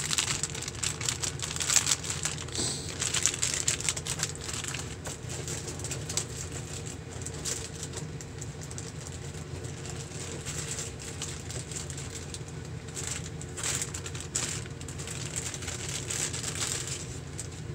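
Clear plastic bags of cooler mounting hardware and a bagged fan crinkling and rustling as they are handled and lifted out of a cardboard box. The rustling is uneven, busiest at the start and again near the end, over a steady low hum.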